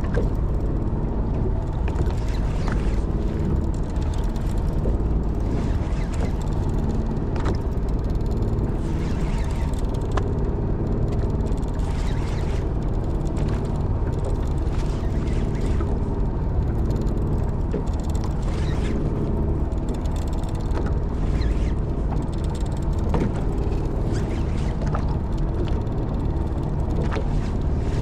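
Steady low rumble of a fishing boat's engine, with scattered mechanical clicks and ratcheting through it.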